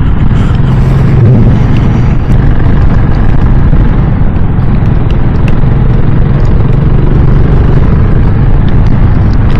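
A KTM 690 Enduro R's single-cylinder engine running steadily while riding, under loud, steady wind noise on the microphone.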